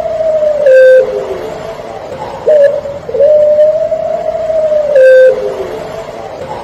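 Puter pelung dove cooing in long, low, drawn-out phrases. The cooing repeats about every four and a half seconds: one phrase ends about a second in, and the next starts about halfway through and closes on a short, louder note.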